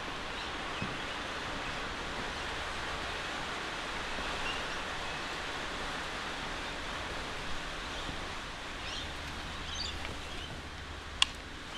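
Steady hiss of rain falling, with a few faint bird chirps near the end and a single sharp click just before it stops.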